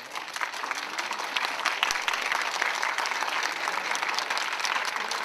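A crowd applauding: dense, steady clapping that builds over the first second and then holds.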